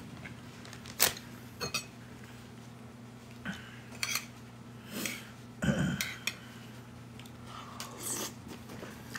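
Metal spoon clinking and scraping against a small ceramic bowl while eating, a series of short, sharp clinks at irregular intervals, the loudest about six seconds in.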